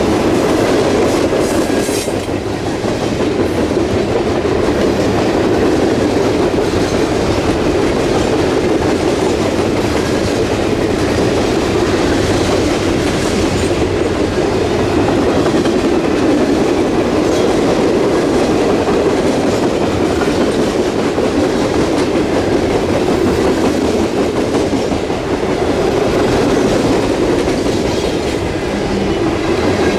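Freight cars of a coke train rolling steadily past at track speed, their wheels clacking over rail joints.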